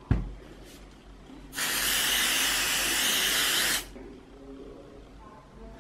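Aerosol can of 505 basting spray hissing in one steady burst of about two seconds, lightly tacking quilt batting to fabric before quilting. A brief thump comes just before it, at the very start.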